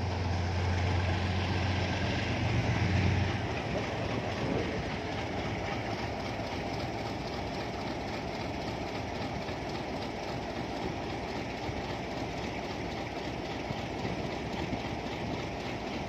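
GE U20C (GEU-20) diesel-electric locomotive running light under power past the listener, a steady low engine drone that stops about three seconds in. A steady rail-yard rumble continues after it.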